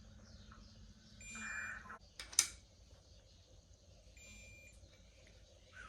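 A digital torque wrench beeps twice, about three seconds apart, as it reaches its set 40 Nm on cylinder head bolts. A sharp metallic click comes between the beeps.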